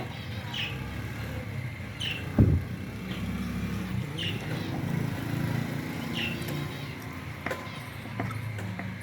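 A motor vehicle running past on the road, its low engine hum swelling through the middle and fading, with one sharp knock about two and a half seconds in. A short high chirp repeats about every two seconds throughout.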